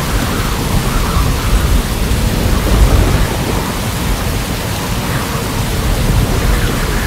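Heavy hurricane rain pouring down, over a steady low rumble that rises and falls.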